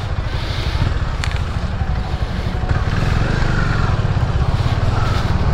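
Motorcycle engine running at idle with a steady, fast pulsing.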